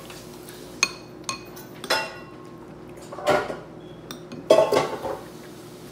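Dishes and eating utensils clinking: several sharp clinks that ring briefly in the first two seconds, then two louder, longer clatters about three and four and a half seconds in.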